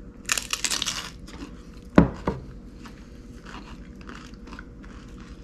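Tortilla chips loaded with ceviche bitten and chewed, a dense crunch in the first second, then fainter chewing. A single sharp knock about two seconds in is the loudest sound.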